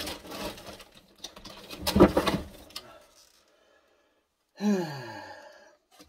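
Objects being handled and moved about, with a loud knock about two seconds in, then a man's low falling grunt near the end.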